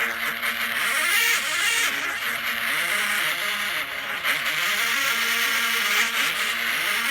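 Stadium vuvuzela sound effect from a phone app: a continuous buzzing massed-horn drone whose pitch is bent up and down by motion control to play a tune, stepping and gliding between notes.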